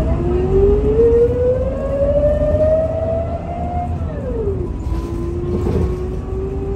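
Scania L94UB city bus heard from inside while it pulls away: the low diesel rumble carries a rising drivetrain whine. The whine falls sharply about four seconds in as the automatic gearbox changes up, then starts climbing again.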